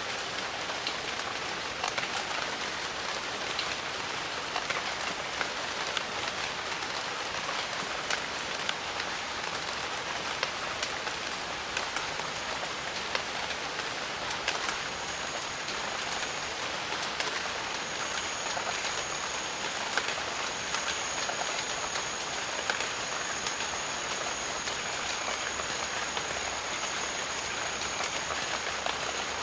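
Steady rain falling in a jungle, with many separate drop hits standing out from the even hiss. About halfway through, a thin, high, steady tone comes in, breaks off briefly, then holds.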